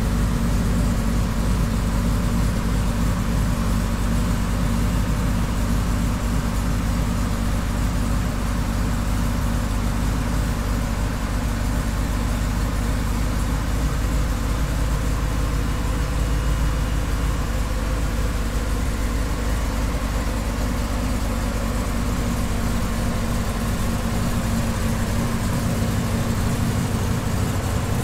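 Cammed Ford F-150 SVT Lightning's supercharged 5.4-litre V8 idling steadily through its aftermarket exhaust, still cold, shortly after a cold start.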